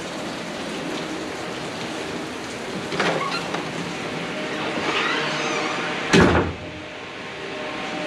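Water running from an electric instant-heater shower head (a so-called suicide shower) and spattering in the stall: a steady rushing. About six seconds in there is a loud knock, and after it the rush is quieter.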